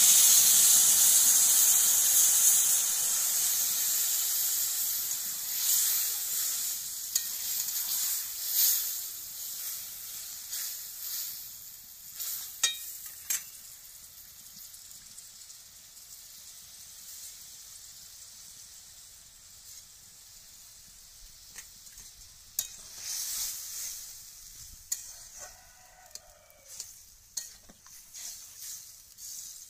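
Water poured into a hot kadai of frying okra and potatoes sizzles loudly, and the hiss dies down over about ten seconds into a faint simmer. Later a spatula stirs the curry, with a few sharp taps against the pan near the end.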